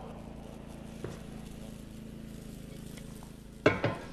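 Quiet, steady room tone, then about three and a half seconds in a short double knock and clatter as a carved wooden figure is set down on a pedestal.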